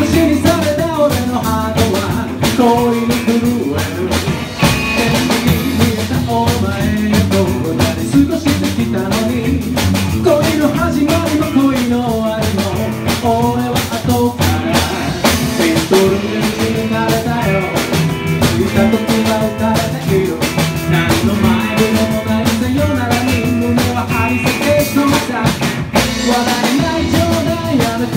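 A small live band playing a song: a man singing over strummed acoustic guitar, electric guitar, upright double bass and a drum kit, with a steady beat.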